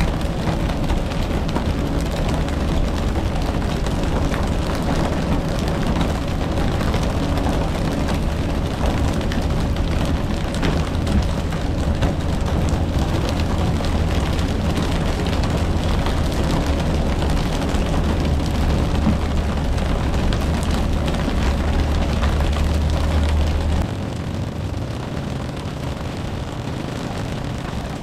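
A boat's engine running steadily under wind and water noise. The engine's low drone stops about 24 s in, leaving the rushing noise.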